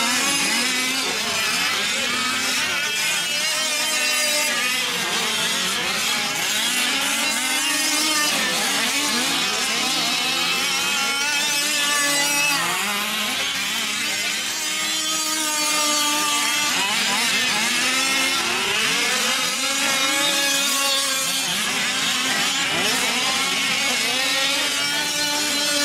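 Several gas-powered 5th-scale RC trucks' small two-stroke engines running at once, their pitches overlapping and repeatedly rising and falling as the throttles open and close.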